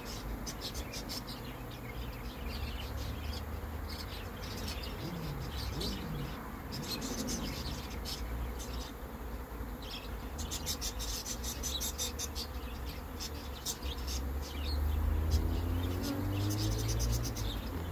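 Honeybees in flight at a hive entrance: a steady low buzzing from many bees, with single bees passing close by, their drone sliding in pitch as they go past. The buzzing grows louder about three-quarters of the way through.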